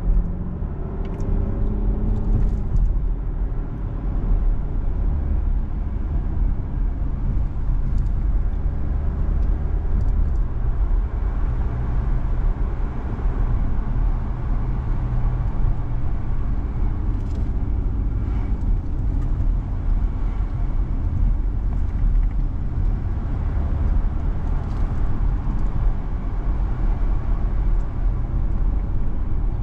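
A car driving, its engine and tyres making a steady low rumble, with a few faint clicks scattered through.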